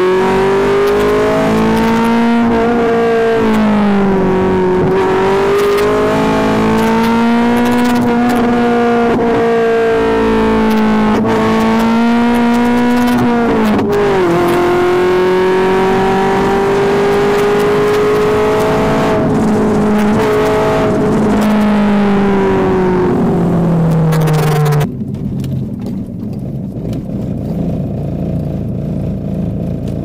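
Tuned Alfa Romeo GT engine running under load as the car is driven, its pitch rising and falling with the throttle and dipping quickly at gear changes. About 25 seconds in it drops abruptly to quieter, steadier low running.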